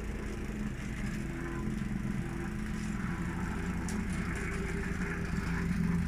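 Petrol-engined vibratory plate compactor running steadily on fresh asphalt, a continuous engine-and-vibration drone that grows a little louder toward the end.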